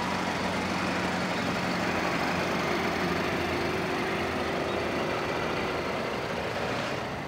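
A steady engine hum under an even wash of outdoor noise.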